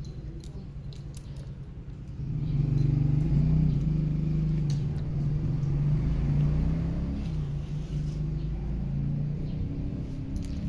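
Kitten purring close to the microphone: a steady low rumble that gets louder about two seconds in, with a few light clicks over it.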